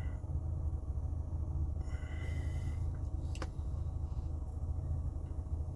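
Steady low rumble of a car cabin while the car sits running, with a short breath about two seconds in and a single sharp click about three and a half seconds in.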